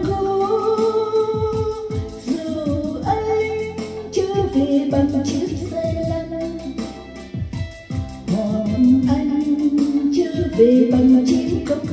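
A song: a singer's held, gliding melody over instrumental accompaniment with a steady beat.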